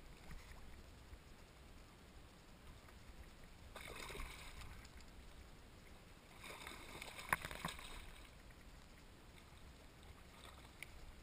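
Water sloshing and splashing close to a kayak, heard from just above the surface. There are two louder bursts of splashing, about four and seven seconds in, and a sharp click during the second one.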